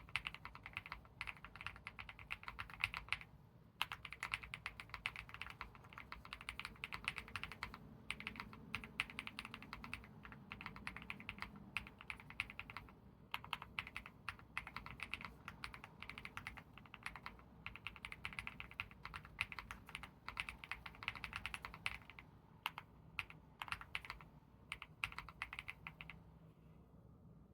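Typing on a Leobog HI75 mechanical keyboard with lubed Akko CS Silver Crystal switches and Infinikey Aether keycaps in its stock build: quick, continuous runs of keystrokes with a few brief pauses, tailing off near the end.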